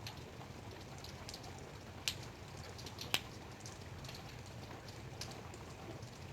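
Light rain: scattered drops ticking irregularly, with two sharper, louder drops about two and three seconds in, over a steady low hum.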